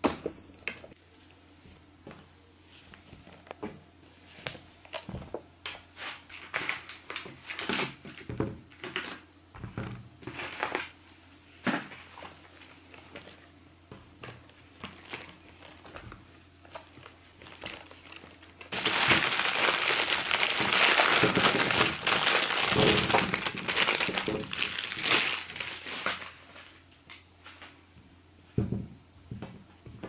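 Groceries handled and unpacked by hand: light rustling and scattered taps of produce and containers, then a loud stretch of bag crinkling and crumpling lasting several seconds, starting about two-thirds of the way in. Near the end, a few dull knocks as potatoes are tipped onto a marble counter.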